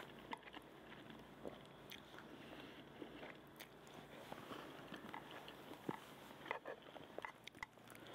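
Faint chewing of cheesy noodles eaten with chopsticks, with a few small clicks scattered through.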